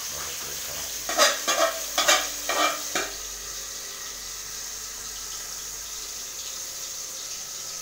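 Food sizzling steadily in a pan being sautéed, with a quick run of utensil clatters and scrapes against the pan between about one and three seconds in.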